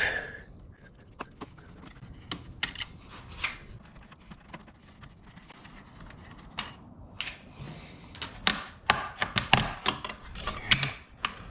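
Pry tool working against a side-mirror turn-signal housing, with plastic clips that are held in tight: scattered sharp plastic clicks and knocks that come thick and fast in the last few seconds as the part is worked loose.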